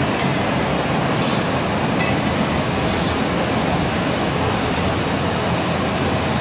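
Wood fire burning in a fire pit under a frying pan of olive oil heating on the grate: a steady rushing hiss with one sharp crackle about two seconds in.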